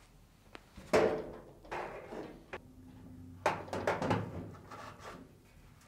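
Samsung dryer drum being set in place inside the cabinet onto its rear rollers: a sharp metal knock about a second in, then scraping and further clunks as it is shifted into position.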